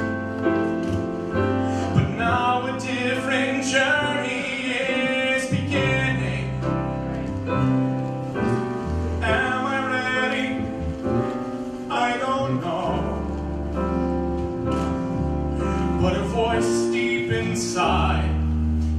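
A male soloist singing into a microphone, accompanied by piano, bass and drums.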